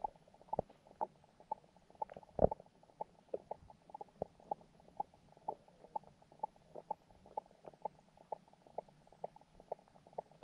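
Underwater pond ambience picked up by a submerged camera: a low hum with many soft, irregular clicks and ticks, several a second. One louder knock comes about two and a half seconds in.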